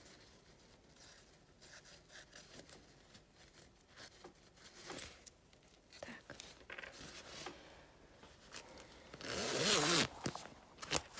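A chunky jacket zipper on a fabric dog vest being zipped closed in one quick pull, a loud rasp about a second long near the end, after quiet fabric rustling and handling.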